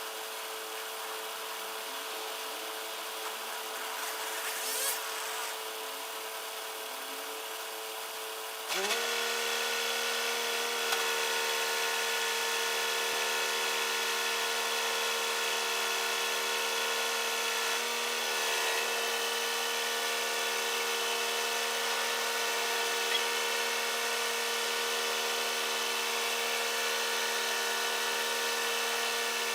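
Crane truck's engine running steadily; about nine seconds in its speed steps up to a higher, louder steady pitch and holds there.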